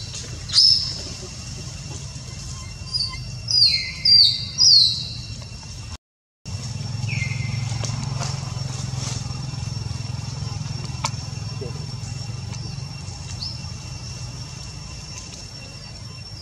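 Short, high chirps, each falling in pitch, one about half a second in, several in quick succession a few seconds in and another after a brief dropout, over a steady high insect-like tone and a low rumble.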